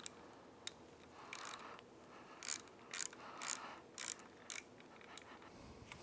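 Hand ratchet clicking in about eight short bursts as bolts are run down into a sterndrive housing.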